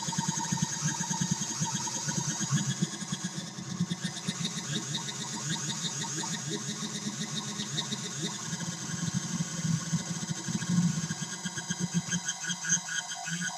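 Homemade 40106 square-wave oscillator synth droning as a fast-pulsing, engine-like buzz, with several oscillators beating against one another. The texture changes about 12 seconds in.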